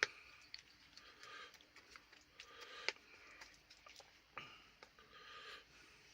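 A man sniffing through a runny nose about three times, short breathy sniffs, between a few sharp small clicks and mouth sounds while eating very hot chilli curry.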